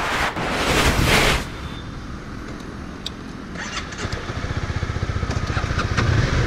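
Wind noise from riding at speed, cut off abruptly about a second and a half in. After that a motorcycle engine idles with a fast, even low pulsing that grows louder toward the end, with a few light clicks.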